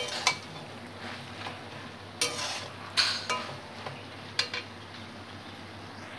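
Metal spatula scraping and clinking against a metal kadai as a thick vegetable curry of pumpkin leaves, potato and pumpkin is stirred to mix in sugar, about six strokes in the first four and a half seconds, over a faint sizzle of the nearly dry curry.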